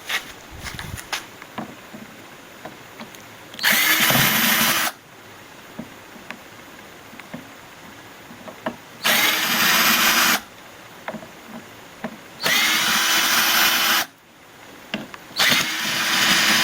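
Power drill/driver spinning in four short runs of a second or two each, with small clicks and handling knocks between them: screws being driven out while the oxygen concentrator is taken apart.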